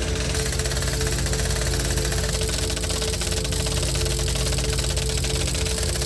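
A steady droning hum of held tones under a fast, even rattle.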